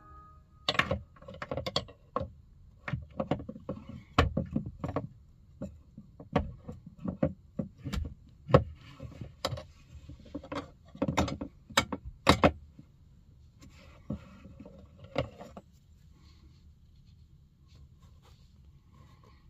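Plastic clicks, knocks and scrapes as a plastic trim pry tool and a hand work against the plastic instrument cluster housing of a Hyundai Staria dashboard. They come irregularly, sometimes several a second, and stop about 15 seconds in.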